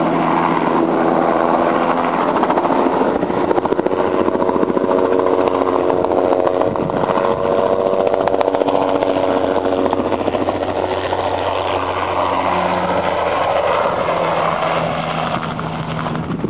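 Bell 206 JetRanger helicopter flying a low spraying pass, its rotors and turboshaft engine making a loud, steady drone that eases off a little near the end.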